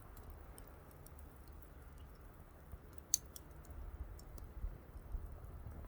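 Wood fire crackling: sparse sharp pops and clicks, one louder pop about three seconds in, over a low rumble.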